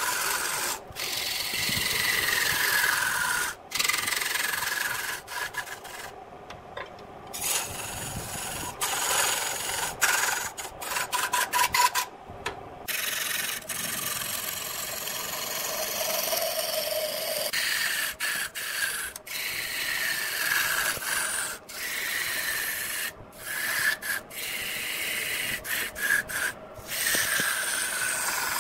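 A turning tool cutting into a large wood blank spinning on a lathe: a continuous rasping hiss of shavings being peeled off, broken again and again by brief pauses as the tool lifts off the wood. Many passes carry a faint whine that slides down in pitch.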